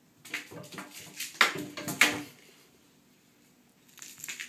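Toy mouse rattling and skittering against a bathtub as a cat bats it about. The rattling and scraping comes in quick bursts, loudest about a second and a half and two seconds in, with another short flurry near the end.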